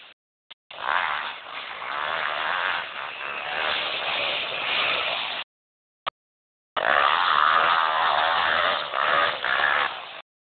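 Yamaha YZ250F motocross bike's four-stroke single-cylinder engine running as the bike rides the track. The sound comes in about a second in, cuts out abruptly for just over a second past the middle, then returns and stops just before the end.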